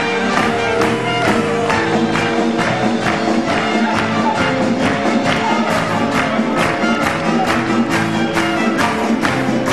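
Circus band playing music with a quick, steady beat.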